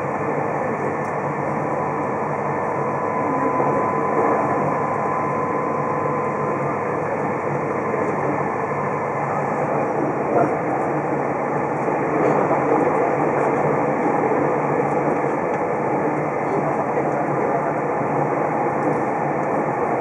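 Interior noise of an electric limited express train running at speed: a steady rumble of wheels on the rails, with a faint high whine in the first several seconds.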